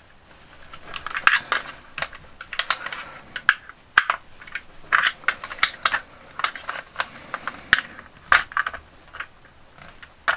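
A flathead screwdriver prying and pushing at the hard plastic retaining clips of a vintage G.I. Joe Snow Cat toy's missile launcher mount, which do not yet come free: irregular clicks, scrapes and creaks of plastic.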